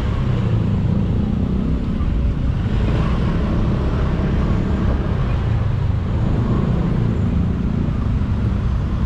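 Honda Click 125i scooter's single-cylinder four-stroke engine running steadily at low speed, mixed with road and traffic noise.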